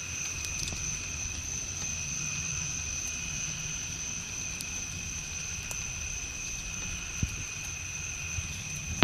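Steady insect chorus of crickets or katydids, two unbroken high-pitched tones, over a continuous low rumble, with a few faint clicks.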